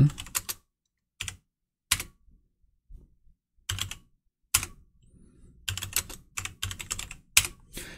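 Typing on a computer keyboard: a few separate keystrokes in the first half, then a quicker run of keys in the second half.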